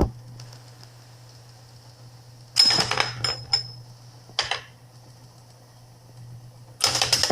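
Typewriter mechanism clacking and rattling in short bursts: a cluster of strokes with a brief metallic ring about two and a half seconds in, a shorter clatter near the middle, and a louder run of clatter near the end, over a steady low hum.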